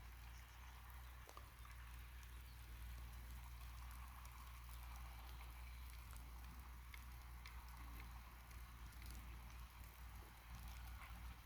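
Faint, steady low drone of a New Holland TT75 tractor engine pulling a plough, with light crackling ticks over it.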